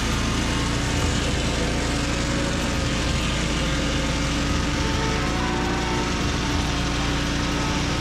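Engine of a Mahoe Minimax circular-blade sawmill running steadily under load as the blade cuts along a white oak log, with the steady noise of the saw in the wood.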